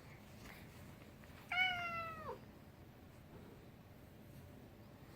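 A kitten meows once, a single call of under a second that drops in pitch at the end.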